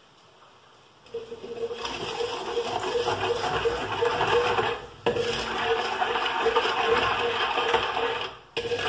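A steel spatula scraping and stirring against the bottom of an aluminium uruli, dissolving sugar in a little water to make syrup. The scraping starts about a second in, runs on continuously, and breaks off briefly about halfway and again near the end.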